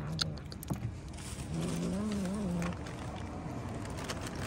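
Cat making a low, wavering growl for about a second in the middle, with a shorter one at the start, among stray cats crowding over food. A few light taps come in between.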